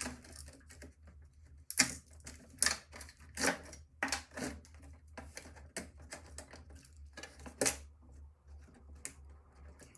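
Irregular sharp clicks and knocks of hard plastic computer parts being handled and pried during disassembly.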